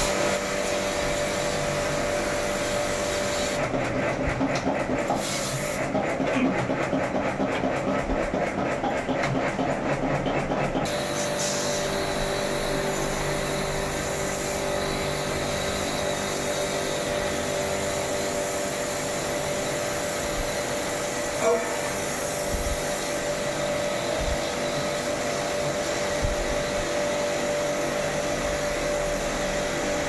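Electric pressure-washer pump running steadily, with the hiss of its water jet spraying into the split AC indoor unit's coil and blower. There is one short knock partway through.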